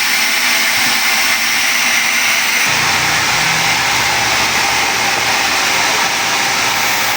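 A power tool running steadily, a loud, even, high hiss and whine; a lower hum joins about three seconds in.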